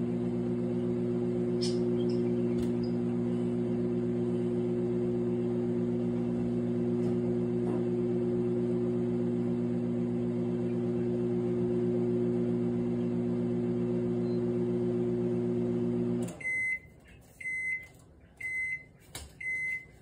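Microwave oven running with a steady hum, which cuts off near the end; then four short high beeps about a second apart signal that the cooking cycle is finished.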